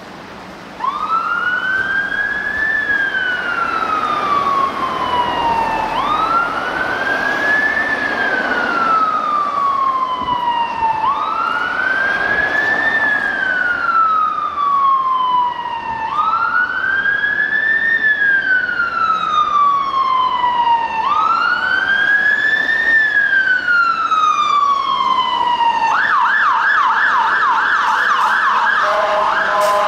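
Siren of a Mercedes-Benz Econic turntable ladder fire engine on an emergency call: a slow wail that rises and falls about every five seconds, then switches to a rapid yelp near the end.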